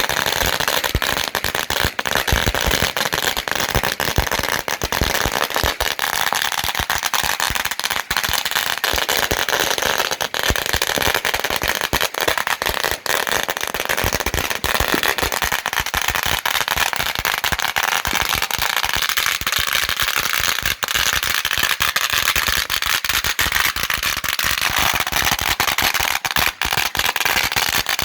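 A long string of 8,000 firecrackers going off, a dense, unbroken rapid crackle of bangs.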